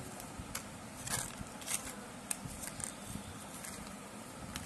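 Foil lid of a plastic surprise-toy candy cup crinkling as fingers peel it back: a scatter of faint crackles and ticks, about one every half second.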